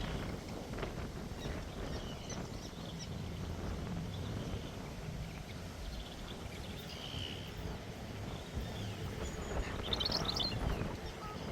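Steady low outdoor rumble, with a few short bird chirps about two-thirds of the way in and again near the end.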